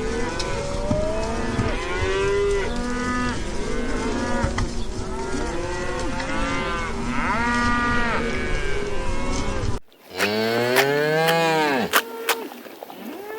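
A herd of cattle mooing, many calls overlapping one another. After an abrupt cut about ten seconds in, a single cow gives one loud, long moo close by.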